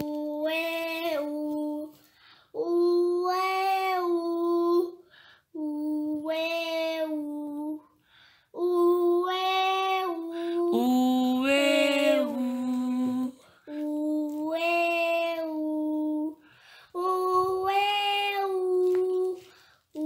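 A young girl's voice singing a vocal warm-up on the vowel "u": about six held notes of roughly two seconds each at much the same pitch, with short breaths between them. Near the middle, one note runs longer, with a second, lower tone beneath it.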